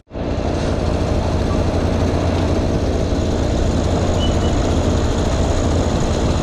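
Heavy diesel truck engine running steadily with a deep low hum, after a brief dropout at the very start.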